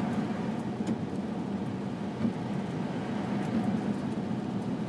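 Steady noise inside a moving car's cabin: engine hum and tyres on a snow-covered road, with a few faint clicks.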